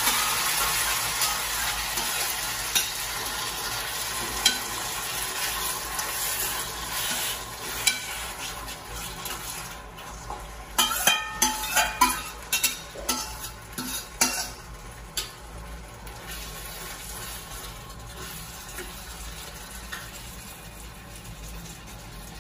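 Chicken marinated in tomato sauce sizzling as it drops into a hot frying pan, the sizzle slowly dying down. A spatula scrapes and clinks against a stainless steel bowl, with a quick run of clinks about eleven to fifteen seconds in.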